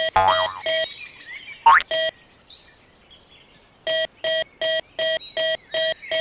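Railroad crossing warning bell ringing in fast, even strikes at about three a second. It breaks off for about two seconds after the first second and starts again about four seconds in. A short rising whistle-like glide sounds in the gap.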